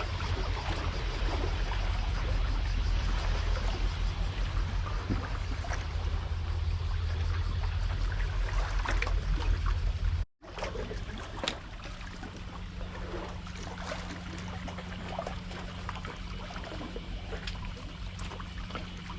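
Seawater lapping and trickling, with a heavy low rumble for about the first ten seconds. The sound cuts off abruptly about ten seconds in and resumes quieter, with a steady low hum underneath.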